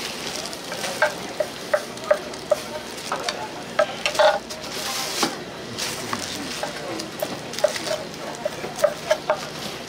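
Gopchang (intestines) sizzling in a hot pan while metal spatulas scrape and stir them, with sharp metallic clinks at an irregular pace, about one to three a second.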